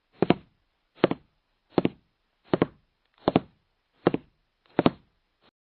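A steady series of dull knocks or thuds, about one every three-quarters of a second. Each is a quick double hit, and the hits stop near the end.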